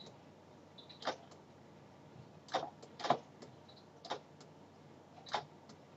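Pen stylus tapping and scratching on a writing tablet during handwriting: five or six faint, separate clicks spread a second or so apart.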